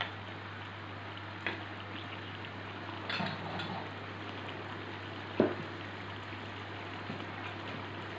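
Fish curry simmering in a pan on a portable gas stove, an even hiss of bubbling over a steady low hum. A few light knocks and clatters sound over it, the sharpest and loudest about five and a half seconds in.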